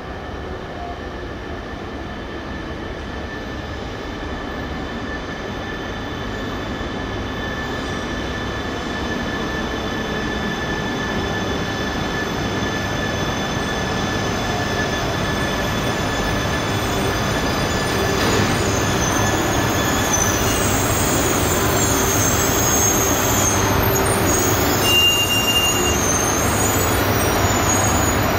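E3-series Shinkansen trainset leading a coupled E5 arriving at a station platform and slowing to a stop. A rumble of wheels on rail with several steady high whines grows steadily louder as the train draws alongside, and a brief higher tone sounds near the end.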